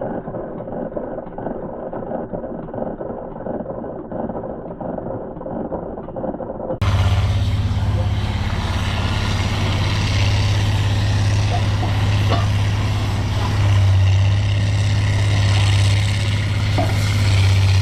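Truck engine running: a muffled rumble at first, then, after an abrupt cut about seven seconds in, a louder, steady low engine hum.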